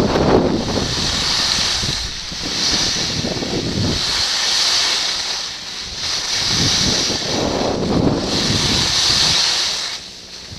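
Wind buffeting the microphone during a fast run down a groomed ski slope, with the hiss of edges carving the snow swelling with each turn, about every two seconds. It eases off near the end.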